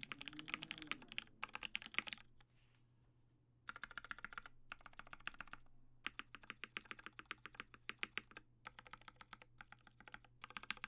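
Custom mechanical keyboard being typed on: Cherry MX Black linear switches, lubed, in an aluminium-plate Matrix 8XV2.0 with GMK keycaps. Fast runs of key clacks come in bursts, with a pause of about a second a couple of seconds in and shorter pauses later.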